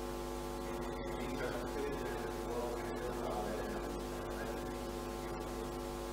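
Steady electrical mains hum, a buzz made of many even tones that does not change, with a faint murmur of voices under it.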